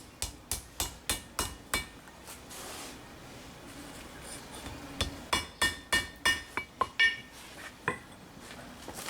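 Hammer striking steel on an anvil: light, quick blows at about three a second in two runs, the second run ringing clearly.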